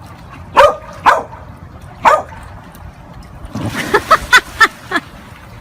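A dog barking: three single barks spaced out, then a quick run of about five short barks.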